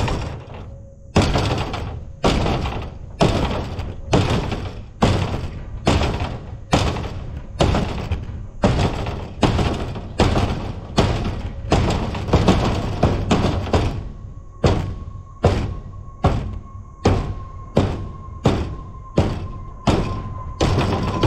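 Repeated heavy blows of a body hammer on a mangled steel excavator panel lying on a wooden trailer deck, each a sharp thunk with a short metallic ring, as the bent panel is beaten straight. The blows come about once a second at first and quicken to nearly two a second.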